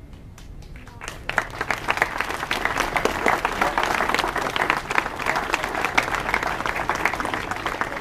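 A crowd applauding: a few scattered claps, then full applause about a second in that keeps going steadily.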